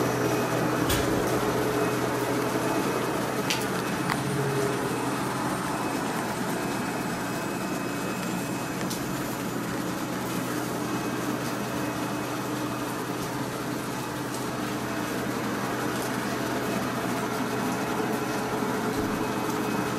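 JR West 105 series electric train standing at the platform with its onboard equipment and air-conditioning running: a steady hum made of several steady tones. A few sharp clicks about one second and three and a half seconds in.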